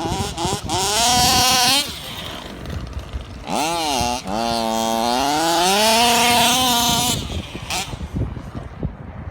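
Freshly rebuilt HPI Baja 5B RC car's small two-stroke petrol engine being driven and revved, its pitch rising and falling. It goes in two bursts: a short climb near the start, then a longer run from about three and a half seconds in to about seven, which dips and then climbs.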